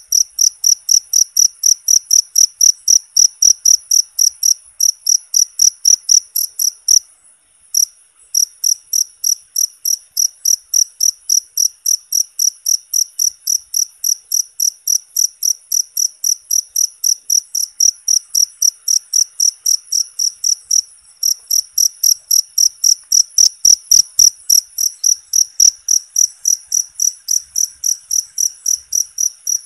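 Cricket chirping steadily, short high-pitched chirps at about three a second, with a brief pause about seven seconds in.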